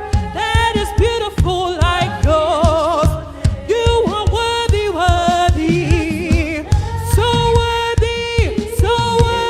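Gospel praise music: voices singing held notes with vibrato and slides over a band with a steady beat.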